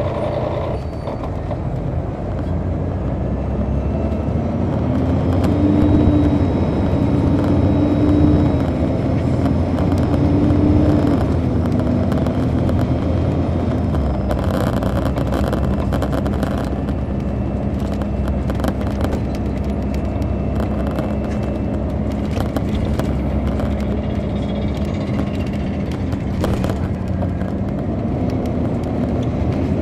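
The Detroit Diesel Series 60 inline-six of an MCI D4000 coach, heard from the rear of the bus while it drives. In the first half the engine note climbs and drops back in steps several times, typical of the Allison automatic upshifting as the bus pulls away. It then holds a steady lower drone while cruising and starts climbing again near the end.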